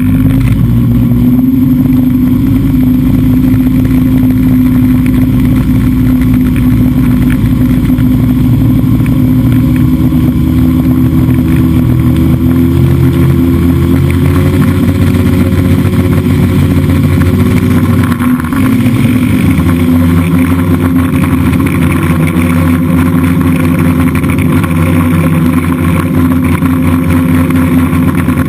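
DJI F550 hexacopter's six electric motors and propellers whirring in flight, a loud steady buzzing hum. Its pitch climbs slowly for about ten seconds, dips briefly about two-thirds of the way through, then holds steady.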